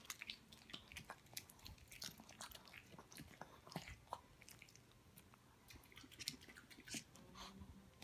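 A small dog chewing and crunching a piece of food: faint, irregular crunchy clicks, with a short lull a little past the middle before the chewing picks up again.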